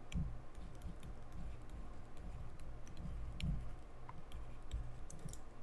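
Faint scattered clicks and soft low bumps from a pen stylus tapping and moving on a tablet while a number is hand-written.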